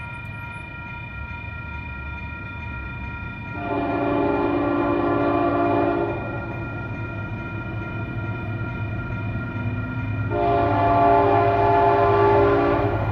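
Diesel locomotive air horn sounding two long blasts, the first about three and a half seconds in and the second near the end, as the train approaches the grade crossing. Underneath are the locomotive's low rumble and the steady ringing of the crossing bell.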